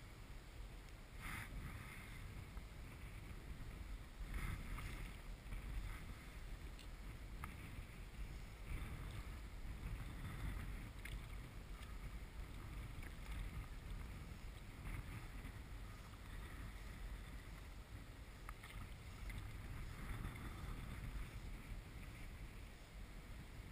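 Water lapping and sloshing against a float tube, with small splashes now and then, over a low wind rumble on the microphone.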